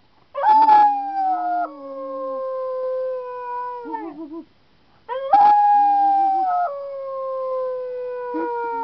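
A beagle howling twice, each a long howl of about three and a half seconds that starts loud and slides down in pitch in steps, with a man howling along in a lower, wavering voice.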